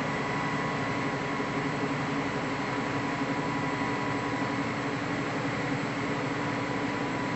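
Hydraulic press pump running steadily, a constant hum with a few held tones over a smooth noise, while the ram holds against a glass ball that has not yet broken.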